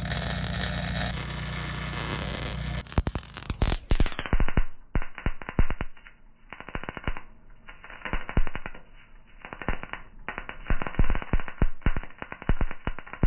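Arc welding on a steel frame. A steady sizzling arc for about three seconds, then a MIG welder crackling in short, irregular bursts with brief pauses between welds.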